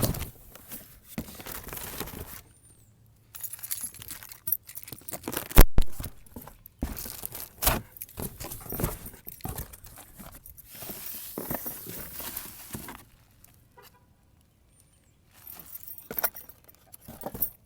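Small metal tools and kit parts being handled and set down: irregular clinking and rustling, with one sharp knock about five and a half seconds in.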